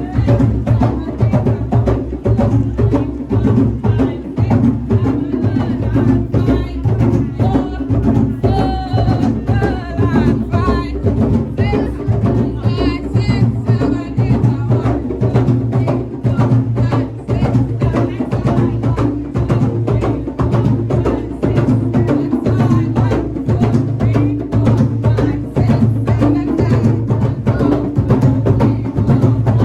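Percussion-led music with drums and a sharp, wood-block-like click on a steady, quick beat. A higher melodic line comes in briefly in the middle.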